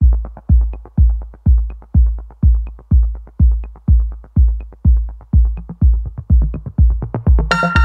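Electronic background music: a heavy kick drum on every beat, about two a second, with quick ticks between, and a bright synth melody coming in near the end.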